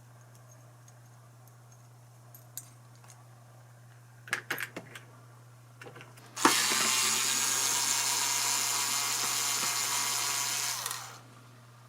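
Electric drill motor running steadily for about four and a half seconds, starting about six seconds in and winding down near the end, after a few light handling clicks; typical of power-driving screws during guitar disassembly.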